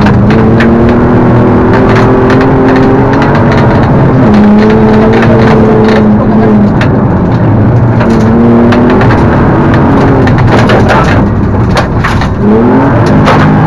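Rally car engine heard from inside the cabin, held at high revs on a gravel stage, its pitch stepping with gear changes and a brief lift about twelve seconds in before it picks up again. Gravel and stones clatter against the car's underside throughout.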